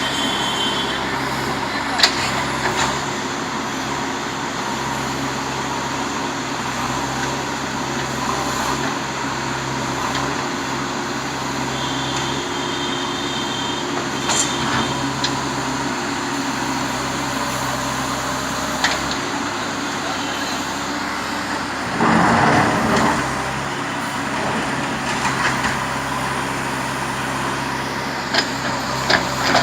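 Heavy diesel engine running steadily, with a few sharp knocks and a louder surge lasting about a second, some 22 seconds in.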